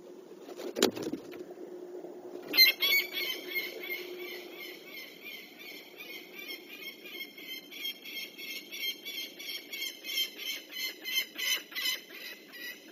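Peregrine falcon alarm cacking: a fast, harsh, high-pitched run of repeated kak notes, about four to five a second, starting a couple of seconds in and going on steadily, the falcon's alarm at an owl near its nest ledge. A sharp knock sounds about a second in, before the calling.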